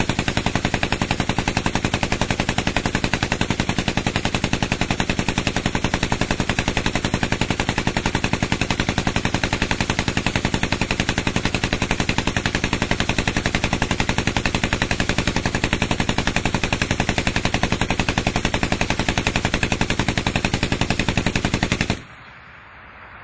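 M240B 7.62×51 mm machine gun fitted with a Smuzzle muzzle-brake suppressor firing one long continuous full-auto burst, a rapid even stream of shots, in a sustained-fire endurance test. The fire cuts off abruptly near the end.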